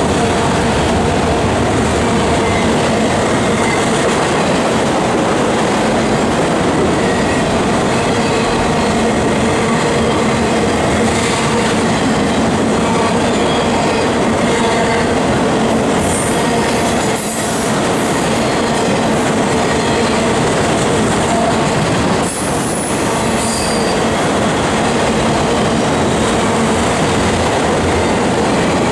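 Autorack freight cars rolling past: a steady roar of steel wheels on rail with some clickety-clack, and high-pitched wheel squeal coming and going in the second half.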